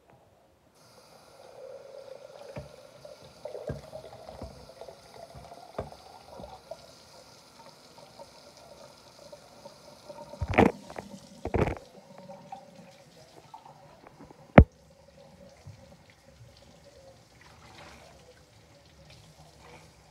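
Water running from a kitchen faucet into a sink, with a few knocks, two louder clunks about halfway through and a sharp click a few seconds later.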